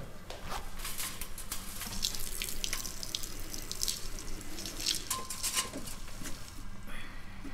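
Irregular water splashing and trickling of a man urinating into a urinal.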